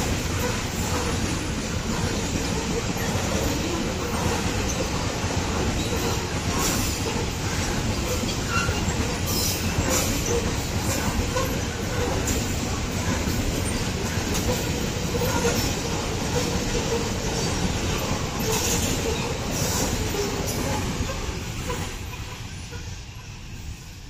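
Loaded Babaranjang coal train's wagons rolling past at speed: a steady rumble of steel wheels on rail with clacks over the rail joints and a few brief high wheel screeches. The sound fades away near the end as the last wagons go by.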